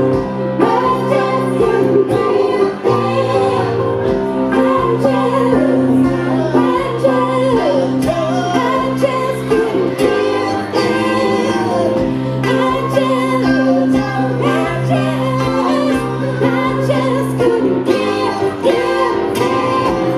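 Live song: a Roland RD-700 stage piano and an acoustic guitar play chords under a singing voice.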